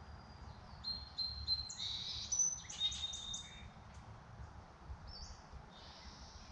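A songbird singing a run of high, clear notes for a couple of seconds, with a brief second phrase near the end, over a faint low rumble.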